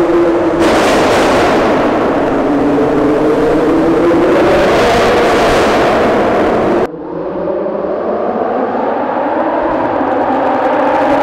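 Lamborghini Huracan LP580-2's V10 through a Fi valved catback exhaust, pulling hard with the engine note rising steadily in pitch. About seven seconds in it cuts to a duller, more distant engine note from the same car, climbing slowly as it accelerates.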